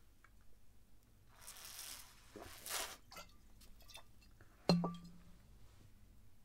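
Glass bottle drunk from, with soft liquid sounds, then set down with one sharp clink that rings briefly about two-thirds of the way through.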